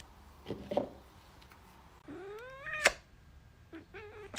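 Domestic cat meowing: a short meow, then a long meow rising in pitch about two seconds in, and another short meow near the end.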